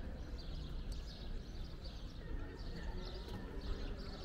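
Outdoor ambience of a quiet town square: small birds chirping repeatedly over a steady low rumble of wind or distant traffic.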